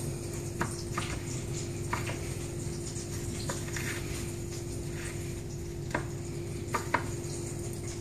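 A hand pressing and turning a cheese-filled phyllo roll in breadcrumbs on a ceramic plate, with a few scattered light clicks against the plate, over a steady sizzle of oil frying in a pan.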